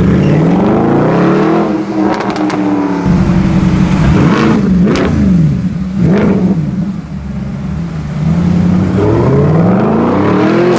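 Mercedes-Benz SLS AMG's 6.2-litre V8 with an aftermarket sport exhaust, revving up and down several times. Sharp crackles and pops come from the exhaust about two seconds in and again around the middle.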